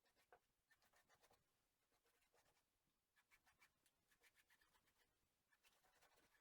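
Near silence, with faint, irregular scratchy ticks.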